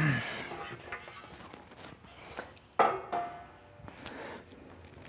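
Handling noises as the intake's heat shield is lifted off the airbox base and moved, with one sharp clunk and a brief ring about three seconds in.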